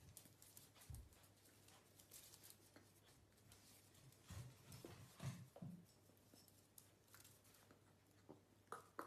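Near silence, with faint scattered taps, scuffs and soft knocks from a dachshund puppy's paws and claws on the tiled floor and against a mirror, a little louder about five seconds in and near the end.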